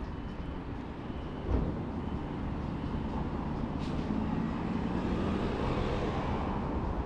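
Downtown street traffic: a steady din of traffic, with a vehicle's engine hum growing louder as it passes close by in the second half. A sharp thump about one and a half seconds in.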